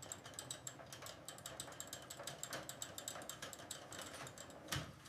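Faint, rapid mechanical clicking, several clicks a second, with a dull thump near the end.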